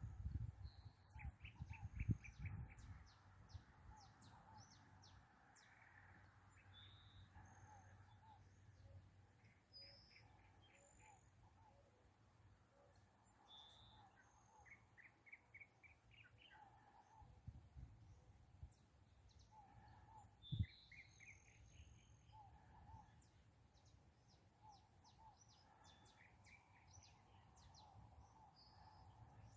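Several wild birds calling and singing faintly, one after another: quick trilled series and short high whistles. A few low thumps near the start and one about two-thirds of the way in.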